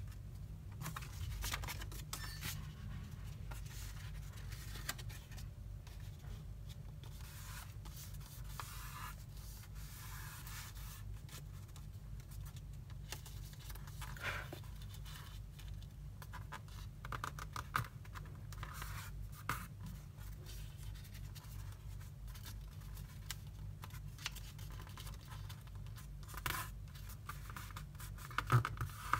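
White paper being folded and creased by hand on a cardboard surface: irregular soft rustles and scraping strokes as fingers press and run along the folds, with a few louder crinkles near the end. A faint steady low hum lies underneath.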